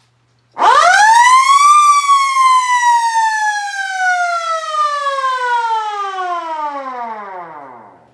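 Battery-powered 28H electromechanical siren given a short growl: it winds up steeply for about a second, then coasts down in a long falling wail over about six seconds until it stops.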